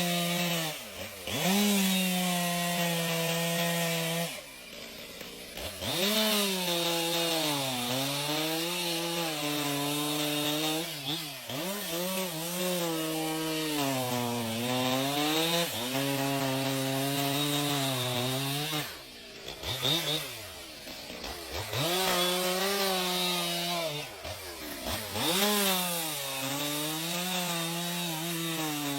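Two-stroke chainsaw cutting wood at high revs, its pitch sagging and recovering as the chain bites. Several times it drops briefly toward idle and revs back up.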